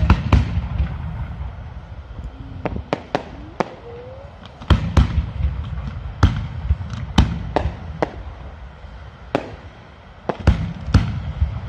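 Fireworks display: aerial shells bursting in an irregular series of sharp bangs, over a dozen in all, some in quick clusters, with a low rumble continuing between them.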